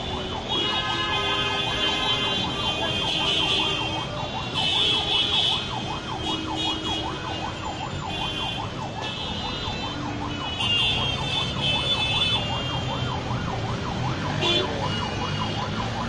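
A siren warbling rapidly up and down in pitch, several cycles a second and without a break, over steady street noise with intermittent higher tones.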